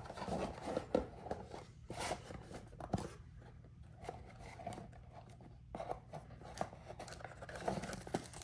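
Cardboard box and packaging being handled and unpacked: soft scrapes and rustling with scattered sharp clicks and taps.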